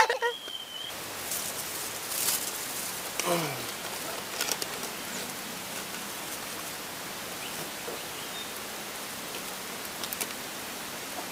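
Steady outdoor hiss with a few light clicks and rustles as carp are handled in a mesh keep net.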